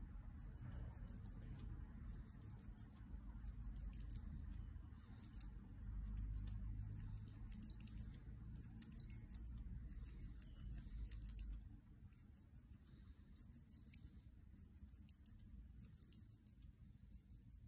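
Copic marker nib scratching on paper in quick, short strokes, the strokes coming in rapid clusters with brief pauses between them. A low rumble sits underneath and drops away about two-thirds of the way through.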